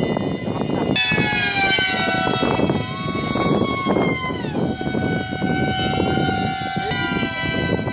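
Radio-controlled model aircraft's motor whining in flight, its pitch jumping up about a second in, sinking around the middle and rising again near the end as the throttle changes. Wind noise on the microphone runs underneath.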